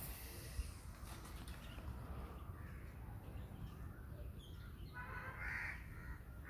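A crow cawing faintly, the clearest harsh caw coming near the end, over a low steady background hum.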